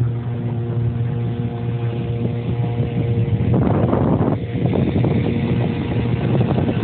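Outboard motor of a MacGregor 25 sailboat running steadily under way, a constant low hum. Gusty wind noise on the microphone grows louder from about three and a half seconds in.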